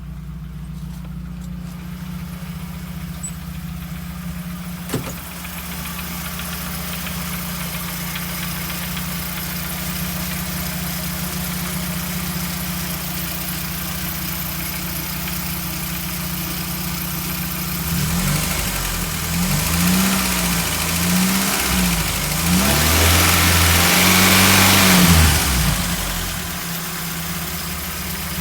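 Volkswagen AP four-cylinder car engine idling steadily, then revved up and down several times for about eight seconds before dropping back to idle. A single sharp click comes about five seconds in. The owner presents the engine as making a noise.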